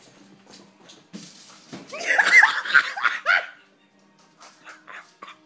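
A short scuffling noise about a second in, as the beagle slides across the floor into a kitchen cabinet. Then loud, high-pitched shrieking laughter from the people watching, with a few faint clicks near the end.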